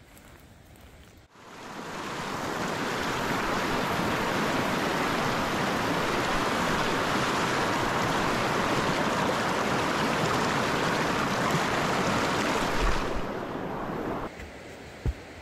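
Fast mountain creek rushing over rocks: a loud, steady wash of white water that starts abruptly about a second in and fades away near the end.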